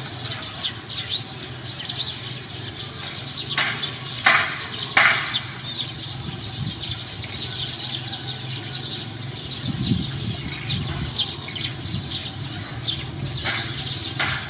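Small birds chirping busily in the background, many short high chirps overlapping without a break. A few short sharp crackles stand out about four to five seconds in and again near the end.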